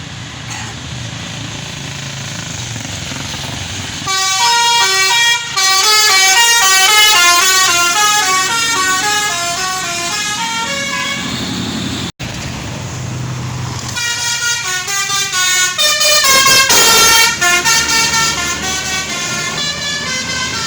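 Tour bus engine running, then its telolet multi-tone horn plays a tune of quick stepped notes for about seven seconds. After a cut, another bus engine runs briefly before a second telolet horn tune of rapid notes.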